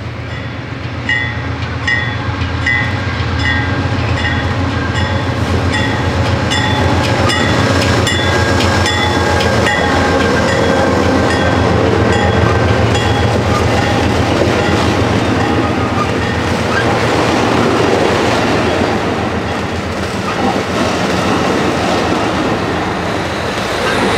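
Amtrak California bilevel passenger train passing close by, its wheels clicking over the rail joints under a steady rumble. A run of short, evenly spaced high pings sounds over the first ten seconds or so. The rear EMD F59PHI diesel locomotive pushing the train brings a swell in loudness near the end.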